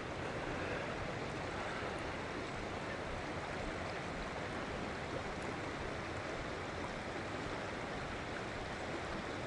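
Fast-moving river current rushing steadily past the bank.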